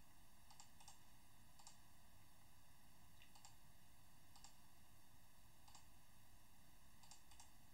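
Faint computer mouse clicks, about nine in all, some in quick pairs, against near-silent room hiss.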